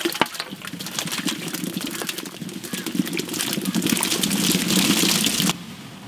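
Hundreds of fresh strawberries sliding off a large metal platter and splashing into a pot of water: a dense rush of small splashes and knocks that grows louder, then cuts off abruptly near the end.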